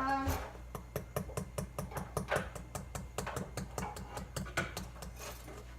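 Brownie batter being stirred by hand in a bowl, the mixing utensil clicking against the bowl about five times a second.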